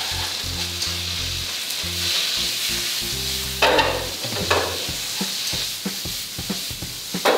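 Bamboo shoot strips and chili bean paste sizzling in a hot wok as they are stir-fried with chopsticks. From about halfway there are sharp clicks and knocks against the pan.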